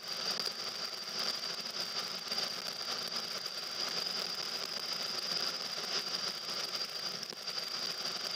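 Car interior noise while driving on a wet road: a steady hiss of tyres and engine, with a steady high-pitched whine on top.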